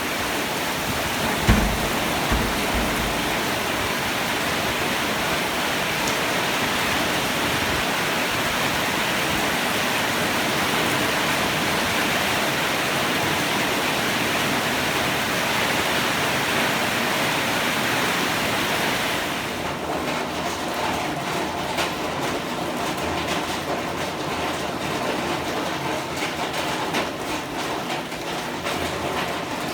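Heavy rain pouring down in a steady, dense hiss. About two-thirds of the way through the rushing thins and breaks into more separate drops pattering on surfaces. A brief low thump a couple of seconds in.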